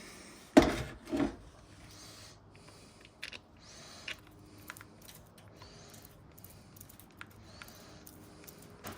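Parts of an impact wrench being handled during reassembly. Two sharp knocks come about half a second apart near the start, then light clicks and brief rubbing and rustling.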